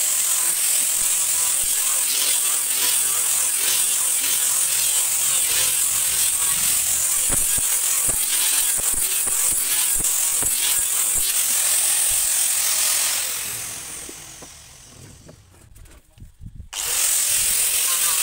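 Electric angle grinder with a sanding disc running at full speed against wood, a steady high whirring hiss. About 13 seconds in it winds down to near quiet, then it is running at full speed again near the end.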